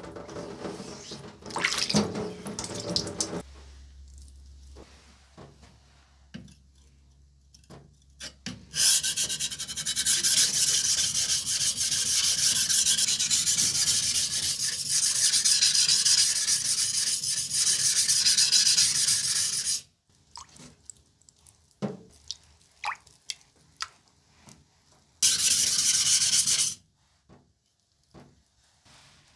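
Rubbing across the wet surface of a whetstone: a fast, even scrubbing that starts about nine seconds in and cuts off abruptly some ten seconds later. Scattered taps follow, then a second short burst of rubbing near the end.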